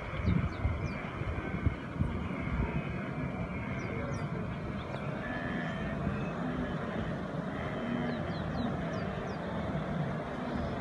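A vehicle engine running steadily with a low rumble. A few faint, short high chirps come through now and then.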